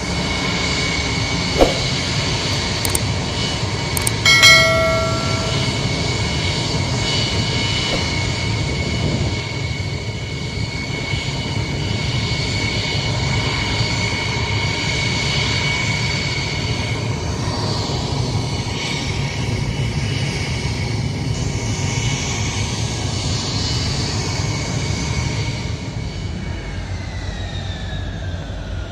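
Jet engines of an Ilyushin Il-76 transport taxiing: a steady rumble with high whining tones that slide down near the end. A short loud tone sounds about four seconds in.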